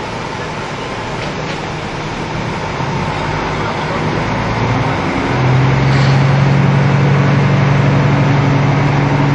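KiHa 75 diesel railcar running under power as the train picks up speed. The engine note grows louder from about three seconds in and changes to a strong, steady tone about five seconds in.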